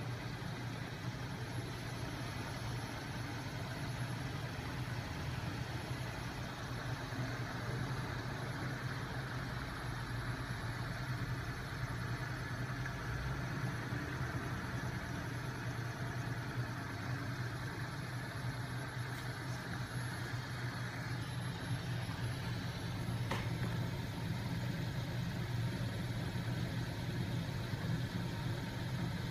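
Homemade magnet-engine machine running steadily, its flywheel and crankshaft spun by a 12 V DC electric motor: a continuous low mechanical hum that grows slightly louder near the end.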